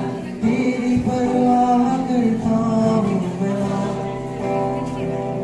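A song plays: a voice sings held, sliding notes over an instrumental backing.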